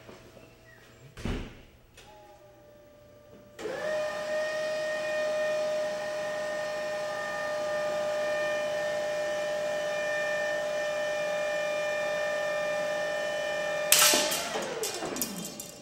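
A powered rod-testing rig's motor starts about four seconds in and runs with a steady high whine while it bends a graphite fishing rod blank. Near the end a sharp, loud crack and crackle as the blank breaks, and the whine falls away as the motor winds down. A soft thump and a click come before the motor starts.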